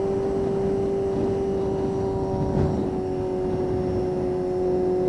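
1992 Honda CBR250RR's inline-four engine, breathing through an aftermarket Musarri exhaust, running at steady high revs with a constant whining note, under a rush of wind noise while riding.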